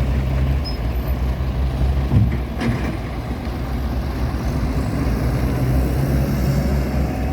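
Heavy logging truck engine running steadily at a low, even pitch, with a brief knock about two seconds in.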